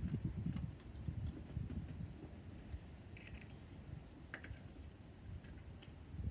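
Faint mouth noises of a mouthful of hard sour candies being chewed and sucked, with scattered small wet clicks. There is a low muffled rumble in the first couple of seconds.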